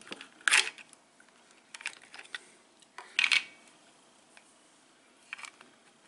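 Sharp plastic clicks and snaps from a keyless RV door lock's battery compartment as it is opened and AA lithium batteries are fitted. The two loudest snaps come about half a second in and about three seconds in, with a few lighter ticks between.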